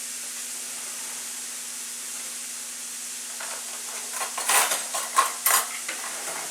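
Floured deer steaks sizzling steadily in hot grease in a skillet. Over the last few seconds a utensil scrapes and knocks against the pan several times as the meat is pressed down.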